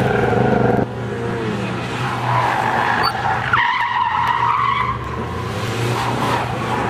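A car engine revving hard while its tyres squeal through a tight pylon turn; the revs drop back about a second in, and the tyre squeal is loudest in the middle stretch.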